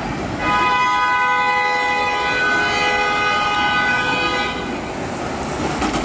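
Vintage electric tram's wheels squealing on a curve of the track: a steady, high-pitched squeal of several tones at once, lasting about four seconds and fading out.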